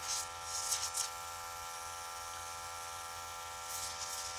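Small airbrush compressor running with a steady buzz, while the airbrush gives short hissing bursts of air: a few quick ones in the first second and more near the end, as the freshly cleaned airbrush is blown or flushed through.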